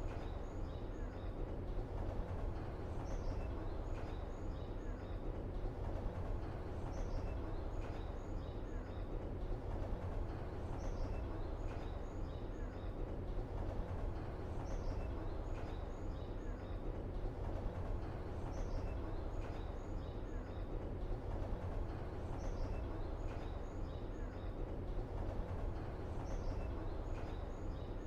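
Steady low ambient rumble with a short, faint, high chirping call repeating at even intervals about every four seconds, like a looped outdoor ambience.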